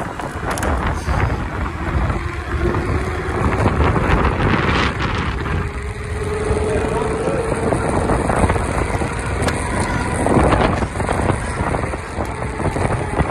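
Wind rushing over the microphone and road noise from a scooter accelerating along a street, with a faint whine that rises slowly in pitch over the first half.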